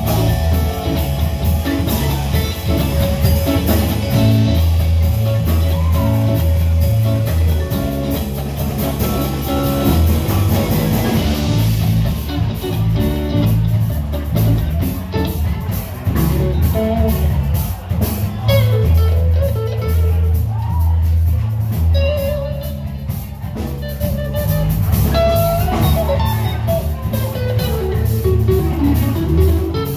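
Live band playing an instrumental rock jam: electric bass, electric guitar, drum kit and a mallet keyboard. The bass line is the loudest part, and from about twelve seconds in the cymbals ride steadily over it.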